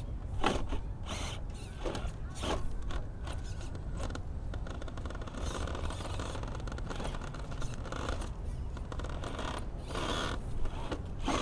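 Traxxas TRX-4 Sport RC crawler's electric motor and geared drivetrain whirring and grinding in short bursts as the truck crawls up over rock.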